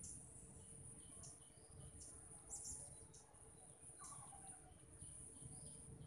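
Faint outdoor birdsong: scattered short chirps over a steady, high-pitched insect drone, with one downward-sliding bird call about four seconds in.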